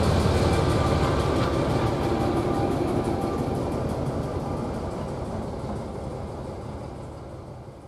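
British Rail Class 08 diesel shunter running away down the line. Its engine and wheel noise fade steadily as it recedes.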